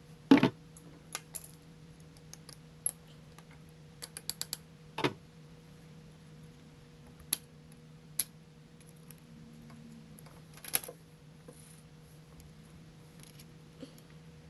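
Small metal parts and tools clinking and clicking against a dirt bike's front sprocket as the snap ring and sprocket guard are refitted. There is a sharp clank about a third of a second in, then scattered taps, a quick run of clicks around four seconds in and another clank near eleven seconds, over a faint steady hum.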